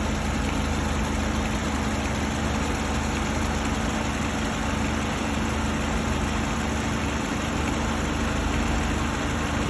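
Car engine idling with the air conditioning on and the engine's cooling fan running: a steady hum with a constant low tone, unchanging throughout.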